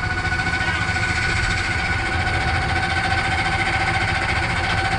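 Electric landing-gear jack motor on a camper whining steadily as it lowers the camper's hitch coupler onto the ball in a pickup bed, over a low rumble.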